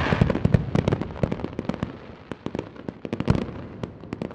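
Fireworks crackling and popping, dense at first and thinning to scattered cracks as they fade, with one louder bang about three seconds in.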